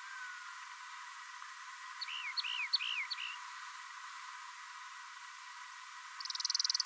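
Rock wren singing: a short phrase of about four quick repeated notes, each a sharp, sliding chirp, about two seconds in. Near the end a fast, buzzy trill starts, louder than the phrase, over a steady faint hiss.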